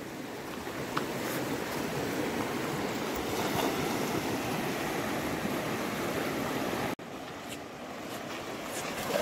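Shallow river with a strong current rushing over stones in a steady wash, breaking off for an instant about seven seconds in.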